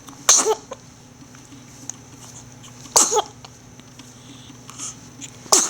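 A baby sneezing three times, about two and a half seconds apart, each a sudden sharp sneeze ending in a brief falling bit of voice.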